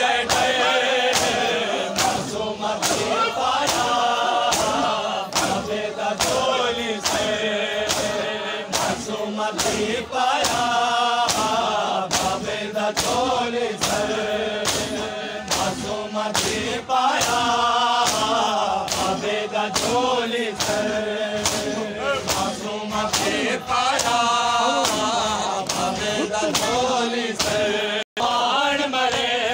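A crowd of men chanting a mourning lament in unison, over rhythmic matam chest-beating: sharp open-hand strikes on bare chests, about two a second.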